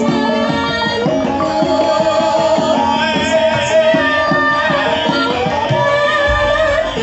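Javanese gamelan in pelog tuning playing with drum strokes under a female sinden's solo singing, her voice wavering with vibrato through the microphone.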